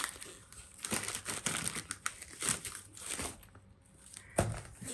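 Patterned gift-wrapping paper being torn and crumpled by hand as a present is unwrapped, in a run of irregular crackles and rustles. A single sharp knock comes near the end.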